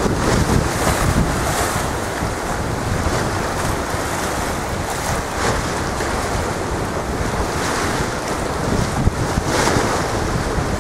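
Wind buffeting the microphone in gusts over the wash of a choppy, whitecapped sea.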